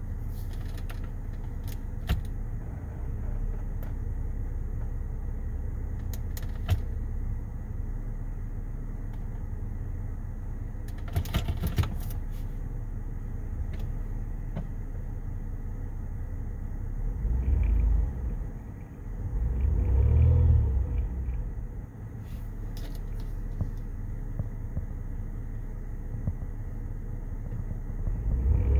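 Kia Amanti's 3.8-litre V6 idling steadily at just under 1,000 rpm, heard from inside the cabin, quiet and without knocking even as the oil pressure warning flickers; the owner suspects worn cam or crank and rod bearings losing oil pressure. A few light clicks come through, and two louder low rumbles swell up about two-thirds of the way in.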